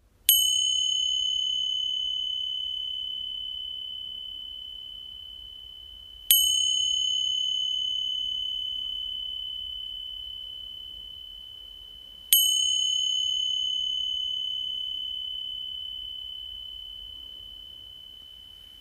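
A high-pitched meditation bell struck three times, about six seconds apart, each stroke ringing one clear tone that slowly fades, the third still ringing at the end. The three strokes mark the close of the meditation.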